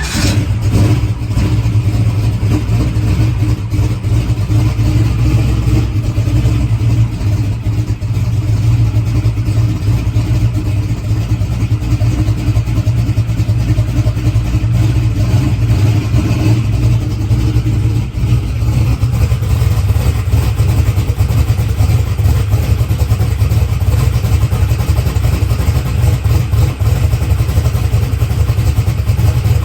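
Small-block Chevy V8 drag-race engine running at a steady, loud cold idle. The engine is cold and short of oil after sitting for a month, and the owner puts its valvetrain noise down to that lack of heat and oil.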